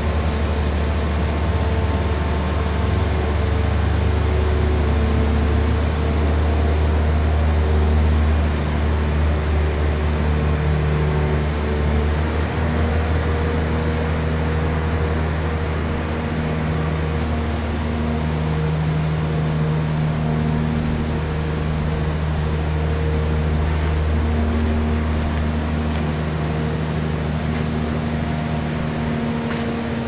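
A 52 m truck-mounted concrete pump runs as its boom unfolds: a steady, heavy engine drone, with hydraulic tones that come and go and shift in pitch as the boom sections move.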